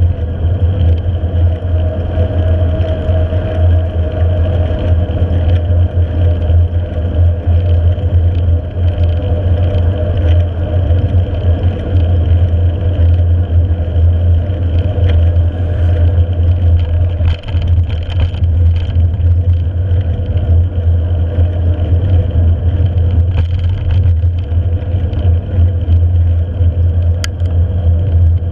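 Steady wind rush and low buffeting on the bike-mounted camera's microphone as a mountain bike rolls fast along asphalt, mixed with the tyres' road noise.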